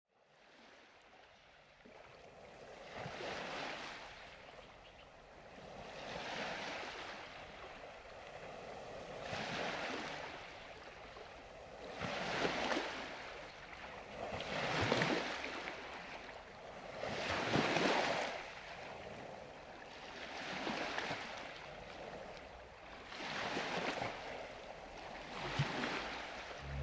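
Sea waves surging and washing in, fading in from silence at the start, with a swell about every three seconds.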